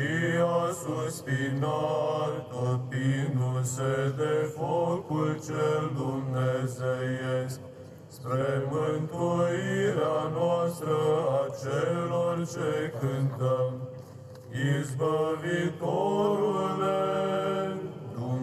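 Men's choir of psalts singing Byzantine chant: a melody sung over a steady held low drone (the ison), with short breaks between phrases about eight and fourteen seconds in.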